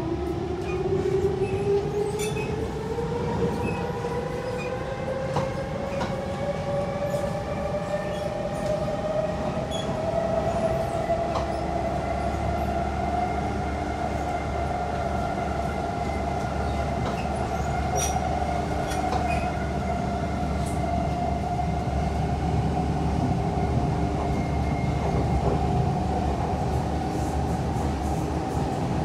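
Siemens C651 metro train's electric traction drive whining and rising in pitch as the train picks up speed, then holding a steady pitch at cruising speed, over the rumble of the wheels on the rails with occasional faint clicks.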